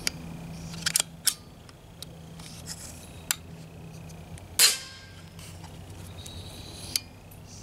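AGT Vixen PCP air rifle being cocked and fired: short metallic clicks of the side charging lever about a second in and again near the end, and one loud sharp crack of the shot about four and a half seconds in.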